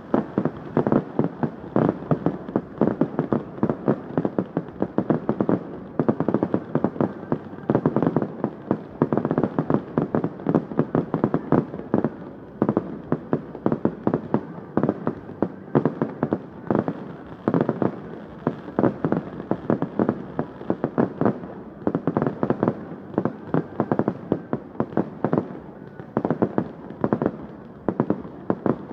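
Fireworks display firing continuously: a rapid, irregular series of bangs and pops, several a second, over a steady rumbling haze of the display.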